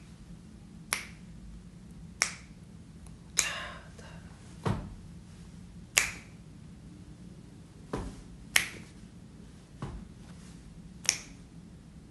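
Finger snaps keeping a beat, about nine sharp snaps, a little over a second apart.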